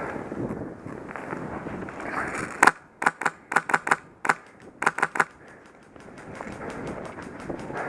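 Airsoft rifle running a Polarstar compressed-air engine firing about a dozen sharp, quick shots in short strings, between about two and a half and five seconds in. Rustling movement noise before and after.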